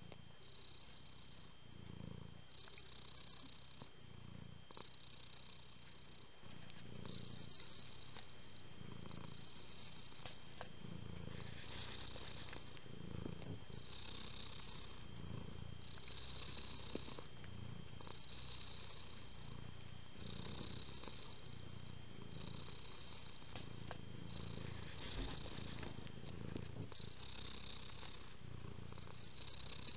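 Domestic cat purring steadily, the purr swelling and easing about every two seconds with each breath, and louder from about six seconds in.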